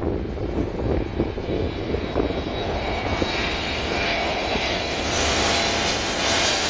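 Airbus A321neo's turbofan engines growing louder as the airliner comes in low overhead on approach to land. A high whine builds from about three seconds in and is loudest near the end.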